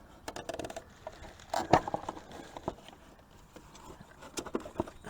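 Scattered clicks and knocks of a cover panel being handled and fitted back onto a garden tractor, with a quick rattle of clicks near the start and one sharper knock a little under two seconds in.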